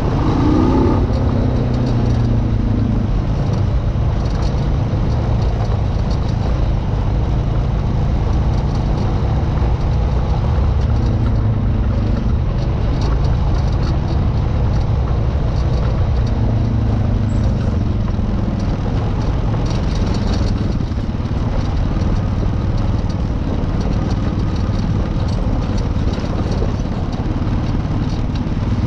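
An off-road vehicle's engine running steadily while under way, its pitch rising and falling briefly a few times.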